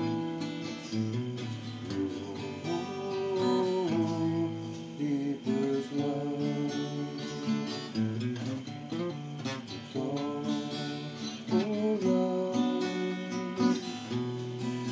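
Acoustic guitar played solo, chords strummed and picked with the notes changing every second or so.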